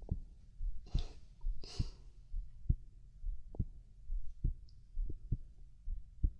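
A person's heartbeat heard close up: soft low thumps about once a second, with two breaths in the first two seconds.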